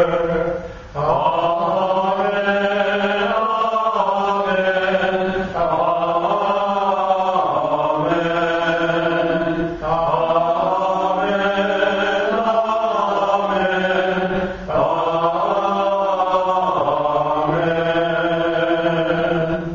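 Liturgical chant sung at Mass to close the Eucharistic prayer, in phrases of about four to five seconds with short breaths between, over a steady low held note.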